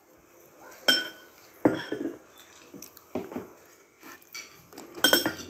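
Cutlery clinking against dishes: a handful of sharp clinks with a brief metallic ring, the strongest cluster near the end.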